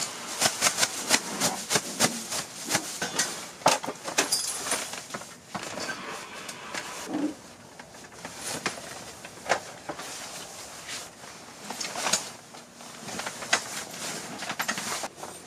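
Handling noise of camping gear being packed up: a plastic bag and bedding rustling and crackling, and a folding camp cot's frame clacking as it is lifted and folded. Many short, sharp crackles and knocks, thick in the first half and sparser later.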